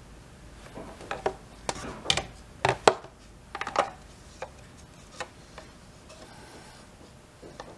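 A run of sharp clicks and knocks from objects being handled, bunched together in the first half, with a few fainter taps later.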